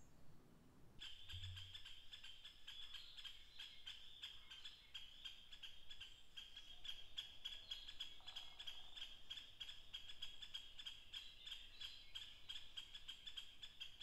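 Faint, high-pitched chorus of rapid pulsing calls, starting about a second in and then continuing steadily.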